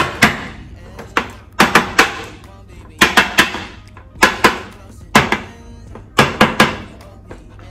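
Background music made of sharp percussive hits, falling in quick pairs and threes about once a second, with short quiet gaps between the groups.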